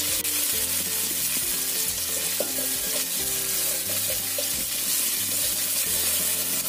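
Garlic and shallot paste with sliced shallots sizzling in hot oil in an aluminium wok, stirred with a wooden spatula. It is a steady sizzle as the aromatics are sautéed until cooked.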